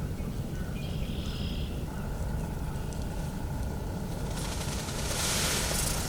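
Steady low rumble of outdoor background noise. From about four seconds in, a loud hissing rustle builds, ending in a few sharp clicks: a bow being drawn to full draw inside the blind.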